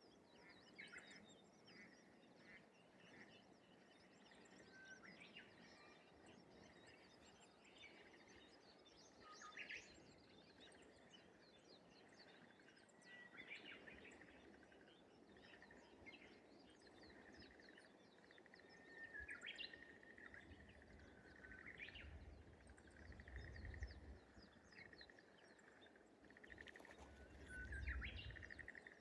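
Faint morning chorus of small birds chirping and twittering. Several times, a Japanese bush warbler sings its song: a held whistle followed by a quick rising phrase. Twice in the second half there is a low rumble.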